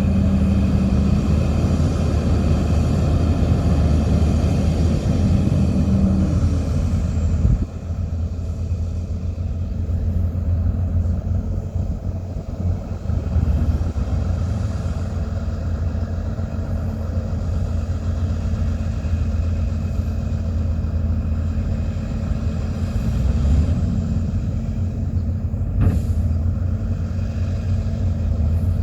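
Heavy diesel earthmoving machinery running with a steady low engine drone. A higher whine stops about seven seconds in, and a single sharp knock sounds near the end.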